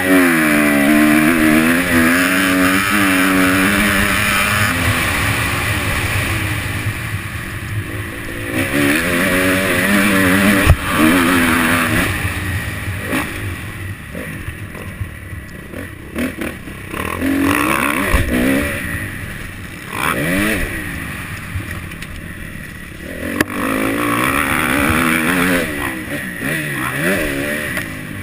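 Motocross bike engine heard up close, revving hard and dropping back over and over as the rider accelerates, shifts and brakes around the track, with a noisy rush over it. A sharp knock sounds about eleven seconds in.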